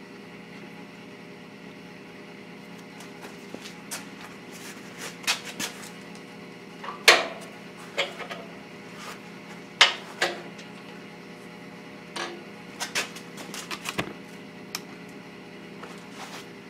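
Steel square tubing and a bent steel channel piece being handled and set in a drill-press vise: scattered metal clanks and knocks, the loudest about seven and ten seconds in, over a steady low hum.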